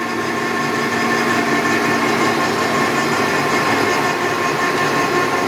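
Clausing Metosa 2487VS variable-speed engine lathe running with its longitudinal power feed engaged, the carriage traversing under power: a steady machine hum with several steady tones, one of the lower ones dropping out about three seconds in.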